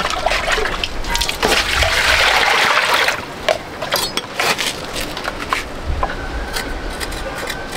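A gush of water lasting about a second and a half, starting about a second and a half in, with scattered knocks and clicks around it.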